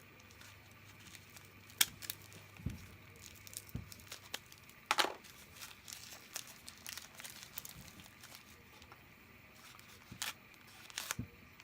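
A taped-up mailing package being handled and worked open by hand: scattered crinkling and crackling of packaging, with a short rip about five seconds in and a few sharp crackles near the end.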